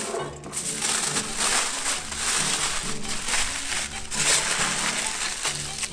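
Aluminium foil crinkling and crumpling in repeated bursts as hands fold it and wrap it tightly around a potato.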